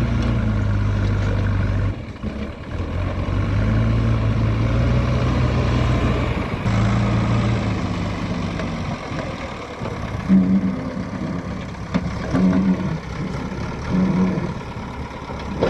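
Heavy diesel machinery engines running at a steady low pitch, dipping briefly about two seconds in, then three short higher-pitched surges in the second half, typical of a backhoe loader working under load.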